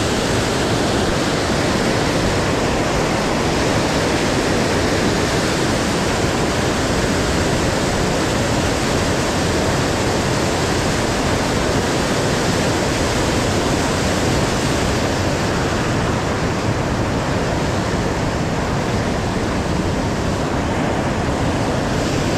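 Rapids of a swollen, flood-high muddy river rushing past, a loud, steady wash of water.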